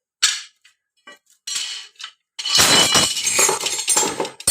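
Steel ride-on mower cutting blades clinking and clattering against each other as they are handled. A few light clinks come first, then a longer, louder jangling clatter over the last two seconds.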